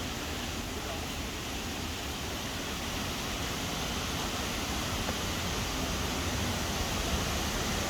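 Steady rushing of a waterfall: an even, unbroken wash of water noise that grows slightly louder toward the end.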